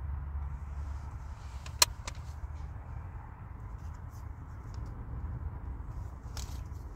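Low, steady rumble of wind buffeting a parked car, with one sharp click about two seconds in and a few fainter clicks after it.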